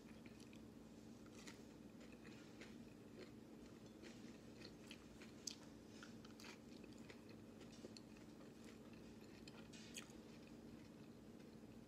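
Faint close-up chewing: scattered soft crunches and mouth clicks as a person eats, over a low steady hum.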